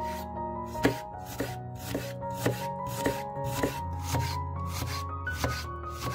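Chef's knife slicing a half red onion on a bamboo cutting board, each cut ending in a knock of the blade on the wood, in a steady rhythm of a little under two cuts a second. Soft background music with held notes plays underneath.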